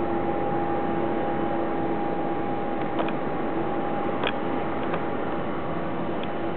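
Steady jet whine from a parked Boeing 737-800, an even rushing noise with two held tones, with a few faint short high chirps near the middle and end.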